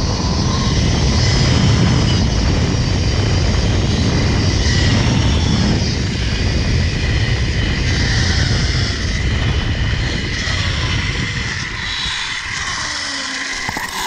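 Zip-line pulley trolley running fast along a steel cable: a loud, steady rushing hum with a thin whine over it, easing a little over the last few seconds as the rider slows.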